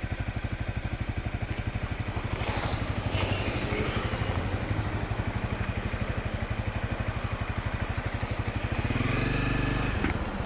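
Honda dual-sport motorcycle's single-cylinder engine running at low, steady revs with a fast, even exhaust beat, swelling briefly about nine seconds in.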